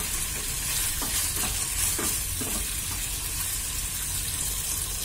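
Chicken wings sizzling in hot barbecue sauce in a frying pan, stirred with a wooden spatula: a few scrapes in the first couple of seconds, then a steady sizzle.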